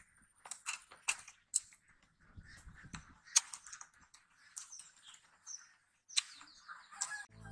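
Close-miked chewing of raw baby corn: irregular crunches with wet mouth clicks and lip smacks.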